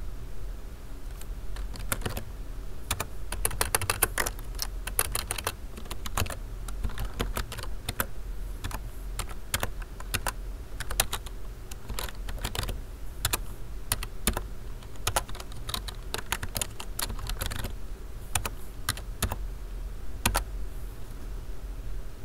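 Typing on a computer keyboard: irregular runs of quick key clicks with short pauses between words, over a low steady hum.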